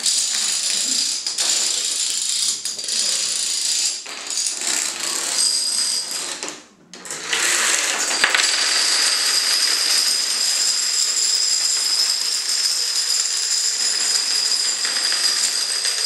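Hundreds of toy dominoes toppling in long chain runs and collapsing from a built-up domino cube and wall, a continuous rapid clatter of small clicking impacts. The clatter breaks off briefly about seven seconds in, then resumes and runs on densely.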